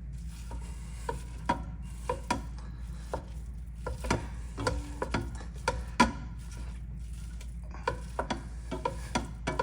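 A utensil tapping and scraping in a frying pan as ground beef is pushed and broken up while it cooks: irregular knocks, one or two a second, over a steady low hum.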